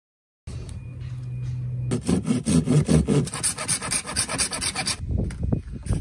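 Hand saw cutting through white PVC pipe with quick, even back-and-forth strokes, from about two seconds in. Near the end the sawing gives way to a few sharp knocks of the plastic pipe being handled.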